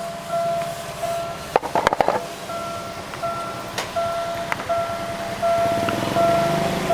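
Railway level-crossing warning alarm sounding a repeating electronic ding, about one and a half a second, as the crossing stays in alarm because its barrier has failed to lift after the train. A brief clatter of clicks comes about a second and a half in, and a vehicle engine builds up near the end.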